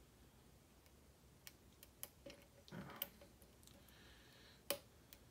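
Scattered faint clicks of a hook pick working the pins of a Kwikset-based pin-tumbler lock under tension, about five in all, the loudest near the end.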